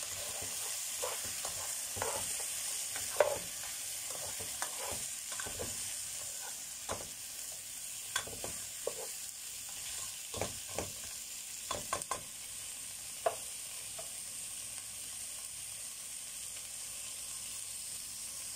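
Onions, carrots and sliced hot dogs sizzling as they sauté in a pot, with a spatula knocking and scraping against the pot as they are stirred. The stirring stops about two-thirds of the way through, leaving a steady sizzle.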